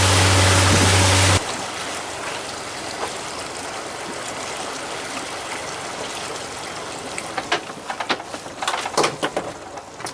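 A boat engine hums under a loud rush of wind and water, then cuts off abruptly about a second in. After that a steadier, quieter rush of water and wind continues, with a run of clicks and knocks near the end.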